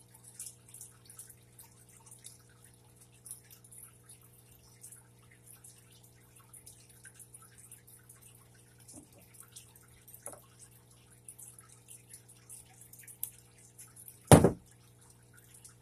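Faint ticks and rustles of fingers working fishing line and a small hook, over a steady low hum, with one sharp knock on the work surface near the end.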